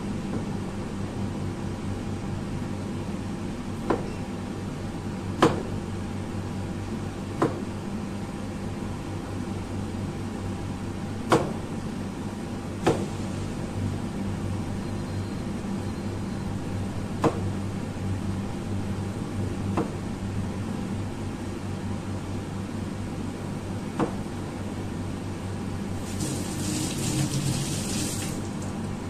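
Water boiling in a wide pan under a steady mechanical hum. About eight separate knife taps on a plastic cutting board come at irregular intervals as tomatoes are cut. Near the end there is a brief hiss of about two seconds.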